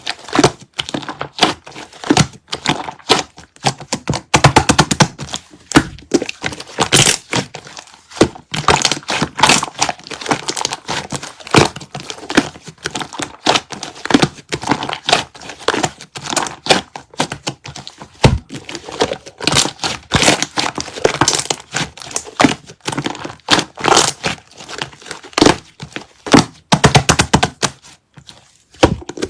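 Close-up handling noise: a dense, irregular run of sharp crackles, crinkles and small knocks.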